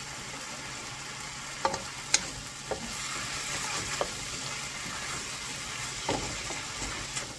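Cubed chicken breast and onion sizzling steadily in a nonstick wok, stirred with a wooden spoon that knocks against the pan a few times.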